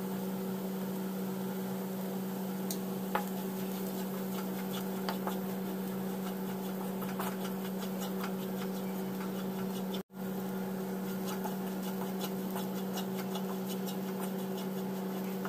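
Wooden spatula stirring onions and spice powder in a nonstick pan, with faint scattered ticks and scrapes, over a steady low hum. The sound cuts out briefly about ten seconds in.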